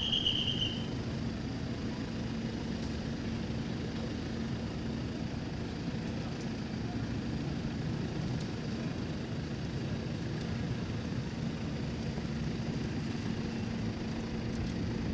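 A vehicle engine idling steadily with a constant low hum. In the first second it is overlaid by a short, shrill, whistle-like high tone.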